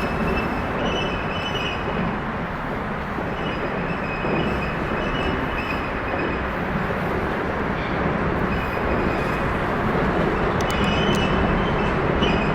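Steady rumble of highway traffic crossing the I-70 bridge, with a high, thin squeal that comes and goes several times, the odd noise the bridge makes as vehicles pass over it.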